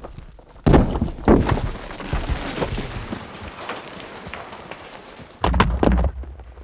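Heavy thuds: two hard hits within the first second and a half, a fading clattering noise after them, and two more hits near the end.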